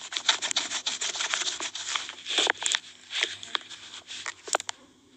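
Rubbing and scratching on a smartphone right at its microphone as the phone's camera lens is wiped clean, a dense run of scratchy strokes and clicks that stops shortly before the end.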